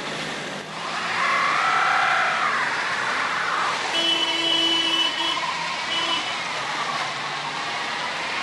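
Cars in traffic on a snowy road, with a whine that rises and falls about a second in, then a car horn held for about a second around the middle and tapped again briefly soon after.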